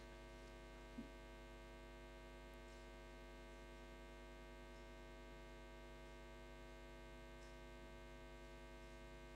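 Near silence apart from a steady electrical mains hum with a buzzy edge, and one faint knock about a second in.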